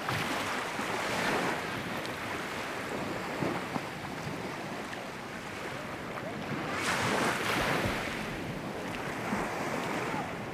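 Sea water washing and splashing in the shallows, swelling and easing, louder about a second in and again near the end, with wind buffeting the microphone.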